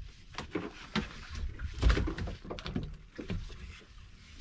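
A fishing rod and reel being handled on a boat: irregular clicks and knocks, with a heavier thump about two seconds in.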